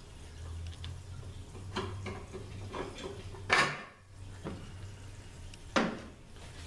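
Metal parts clinking and clanking as the drill jig and guides are taken out of a 5R55S transmission case's servo bores and set down on the workbench. There are a few light clicks, then two sharper clanks about three and a half and six seconds in.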